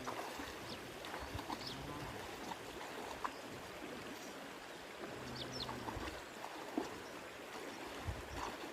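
Steady rush of flowing river water, with a faint distant voice about five seconds in and a few short high chirps.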